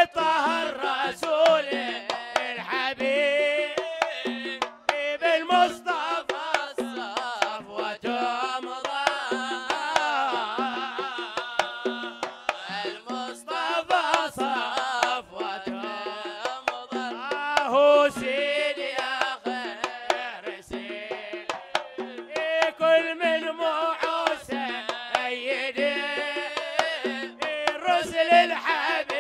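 Hadrami zarbadi folk music: a winding, ornamented melody on flute and men's voices over a steady beat of hand-drum strokes.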